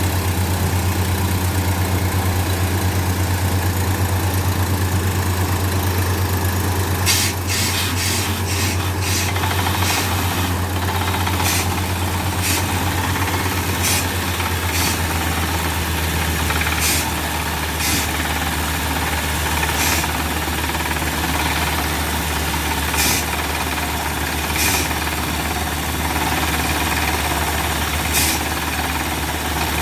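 Engine of a bore-well drilling machine running steadily with a low hum. About a quarter of the way in comes a quick run of sharp knocks, then single knocks every one to three seconds.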